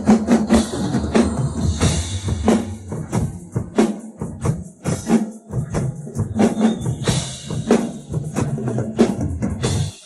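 Drum kit played with sticks along to a recorded Chinese TV-drama theme song: fast strikes on bass drum, snare and cymbals over the backing music. The playing and the music stop abruptly at the end.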